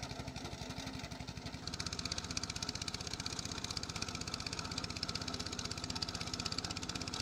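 Small lawnmower-type engine of a long-tail boat motor running steadily as it pushes a bamboo raft, a rapid, even putter. About two seconds in it becomes a little louder and brighter.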